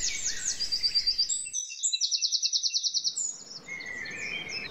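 Several songbirds singing in a dawn chorus: short high chirps and whistles, with a fast, even trill lasting about a second, starting about two seconds in.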